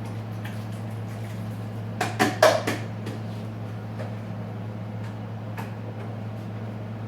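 A quick run of sharp clattering knocks, about two to three seconds in, as small tools or a container are handled on a workbench, over a steady low electrical hum.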